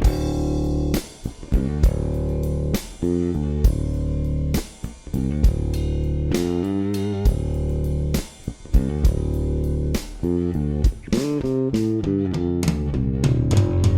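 Yamaha Attitude electric bass played through its middle pickup, a riff of plucked notes over a drum kit backing.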